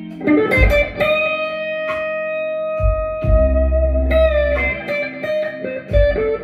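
Schecter Van Nuys electric guitar through a Spark 40 amp, playing a slow blues lead line. One note is bent and held for about four seconds, with shorter notes around it and deep low bass notes underneath.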